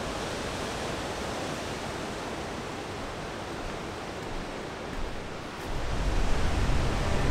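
Ocean surf breaking on a beach, a steady wash of waves. A louder low rumble comes in near the end.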